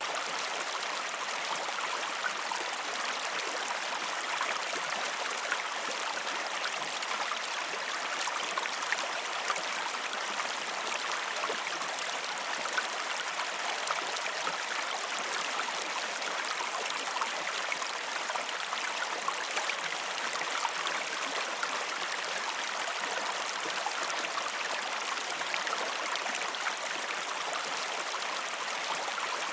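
A calm river flowing: a steady, even rush of water, flecked all through with small splashes and gurgles.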